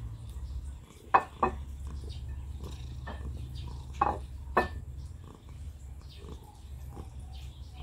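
Wet chewing and lip smacking of a person eating rice and omelette by hand, with four sharp smacks, a pair about a second in and another pair about four seconds in, and small clicks between. A low rumble runs underneath, dropping away for a few seconds about a second in.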